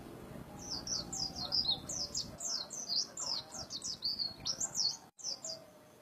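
Caged white-eye (pleci) singing in full voice: a rapid run of high, sharply sliding notes, starting about half a second in and going on for about five seconds.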